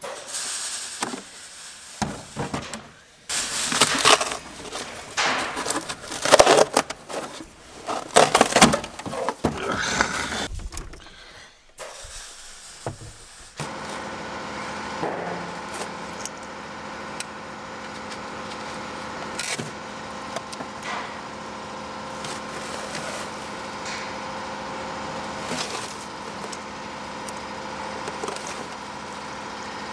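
Old glued-down carpet being pulled and torn off the footwell floor of a Ferrari 308 GTS: loud, irregular ripping and scraping for about the first ten seconds. From about 13 seconds in, a steady machine hum carries on under quieter handling sounds.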